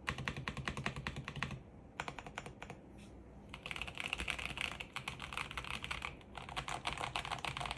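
Typing on a plateless KBD67 Lite R3 mechanical keyboard with Anubis tactile switches: quick runs of keystrokes, a pause of a couple of seconds with only a few scattered presses, then steady fast typing again.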